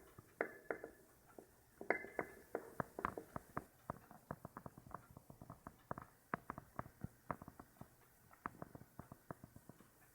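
Pet fancy rats moving and grooming, making quiet, irregular clicks and small taps, two to four a second.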